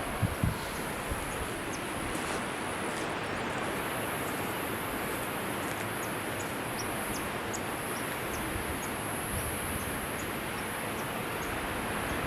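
Waterfall's falling water making a steady, even rush, with faint short high chirps over it and two or three low thumps right at the start.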